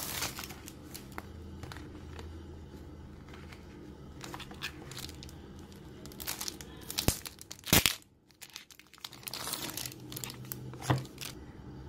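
Clear plastic packaging and a cellophane sleeve being handled and peeled off a notebook: irregular crinkling and crackling with a few sharp snaps, the loudest a little under two-thirds of the way through.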